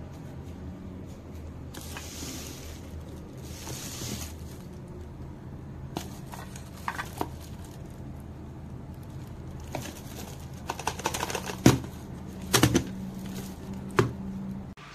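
A boxed food steamer being handled in its plastic wrapping: soft plastic rustling, then several sharp clicks and knocks in the last few seconds, over a low steady hum.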